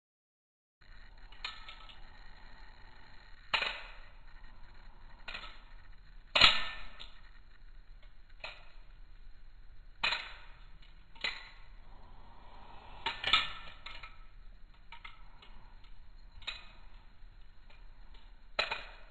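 A Bladerunners Systems balisong (butterfly knife) being flipped: sharp metallic clacks as the handles and latch strike, each followed by a brief ring, about a dozen spaced a second or two apart, the loudest about six seconds in. It is silent for the first moment.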